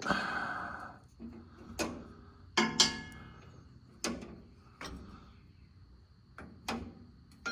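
Scattered metallic clicks and knocks, about half a dozen, a few with a short ring, from a wrench being worked on the steel fill plug of a pickup's rear differential to break it loose.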